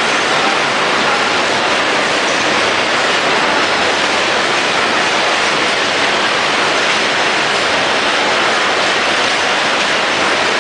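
A washing-powder packaging line running: a vertical bagging machine and its conveyor. It is heard as a steady, loud, even din with no distinct beats or strokes.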